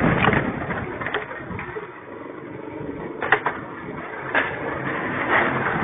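Strong gusty wind blowing, with several sharp knocks and cracks of loose objects being banged about, two of them close together about halfway through. The wind swells near the end.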